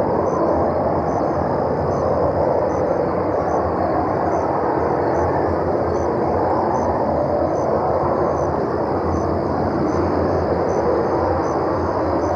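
Steady, unbroken low roar from the night sky, which the uploader calls strange sounds coming from the sky. Faint high chirps repeat about twice a second throughout.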